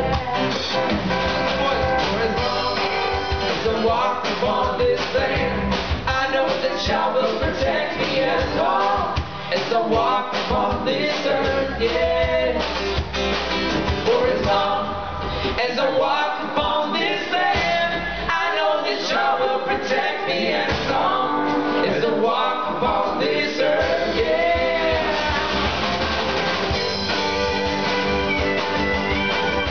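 Live band playing a song, with electric and acoustic guitars over drums.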